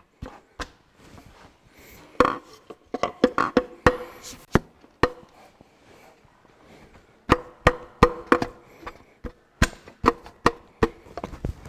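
Sharp knocks as a wooden drift, set against the con rod of a Ferguson 23C diesel engine, is struck to drive the piston out through the cylinder bore. The knocks come in two bursts of quick strikes with a short pause between, many with a brief ring.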